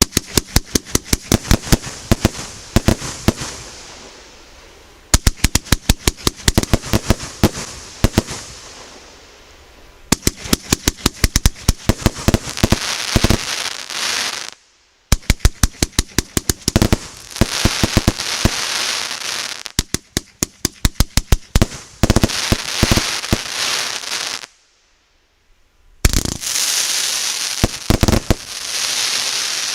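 A 100-shot 1.2-inch firework cake firing rapid volleys of shots in quick runs, with dense crackling from the bursting stars between the runs. The firing stops twice briefly, once about halfway through and again near the end, then resumes with a sharp report.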